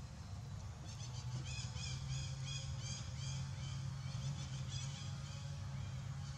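A run of short, high chirping calls, about three a second, from about a second in until about five seconds in, over a steady low hum.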